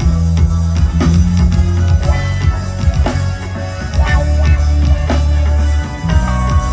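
Live rock band playing in a sound check: a drum kit with a strong bass line and guitar, the drums striking about once a second.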